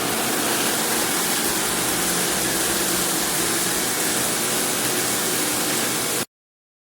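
Water running steadily from a square rain shower head, a loud even hiss that cuts off suddenly about six seconds in.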